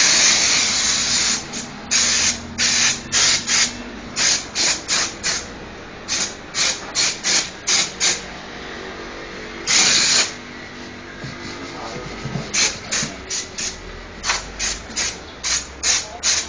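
Diesel steam cleaner's spray wand hissing out hot, high-pressure steam in rapid short blasts, about three a second, with a longer blast at the start and another about ten seconds in.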